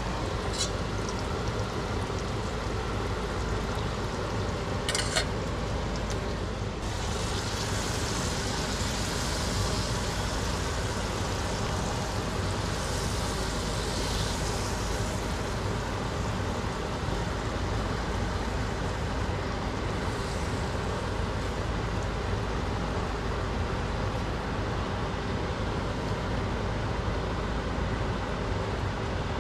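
Chicken pieces sizzling in curry sauce in a frying pan on a gas stove while a silicone spatula stirs them. There are a couple of sharp clicks in the first few seconds, and the sizzle grows brighter a few seconds in, over a steady low rumble.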